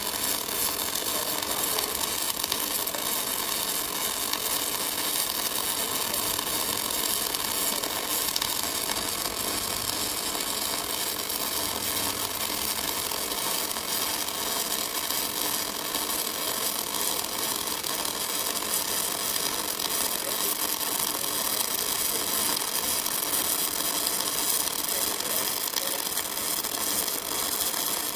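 Pulsed MIG (GMAW-P) welding arc of a robotic welder: a steady buzzing hiss with an even, unbroken tone.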